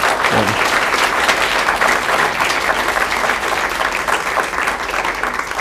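Audience applauding, many hands clapping at once, easing off slightly near the end.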